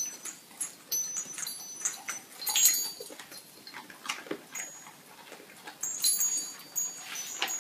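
A golden retriever crunching and chewing a treat off a tiled floor: irregular crisp clicks and crunches, the loudest about two and a half seconds in, with light metallic jingling from its collar ornaments twice.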